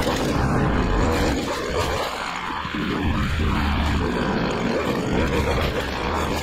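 Petrol-engined lawn machinery running steadily, with a deep rumble under a wide rushing noise.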